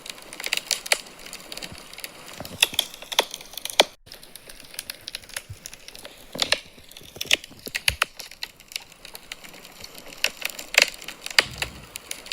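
Wood fire crackling in a fireplace: irregular sharp pops and snaps of burning logs over a soft hiss, with a momentary break in the sound about four seconds in.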